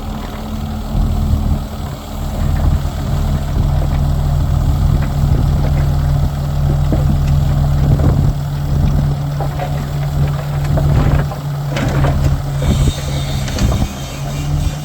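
Heavy diesel engine of earthmoving machinery running steadily, with a few short knocks about halfway through and again near the end.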